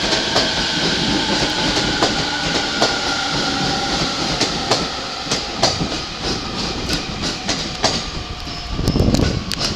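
Electric commuter train running through the station platform, its wheels clacking over rail joints in irregular clicks. A faint motor whine drifts down in pitch as it slows, and a low rumble swells near the end.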